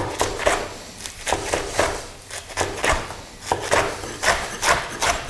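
Chef's knife slicing through blanched, squeezed spinach and striking a plastic cutting board in a steady rhythm of about three cuts a second.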